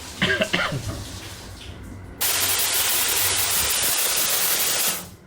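Shower head spraying water in a train's timed shower cubicle: the spray comes on abruptly about two seconds in, runs steadily for nearly three seconds, then stops.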